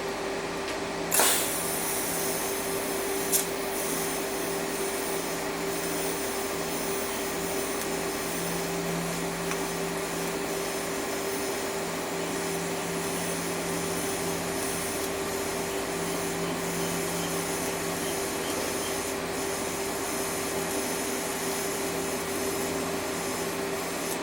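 TIG welder arc welding a stainless steel canister end: a steady electric hiss with a constant hum, with a sharp crack about a second in, another a couple of seconds later, and a last one at the end.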